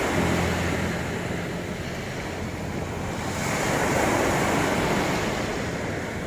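Sea waves washing onto a shore, the surf swelling and ebbing twice.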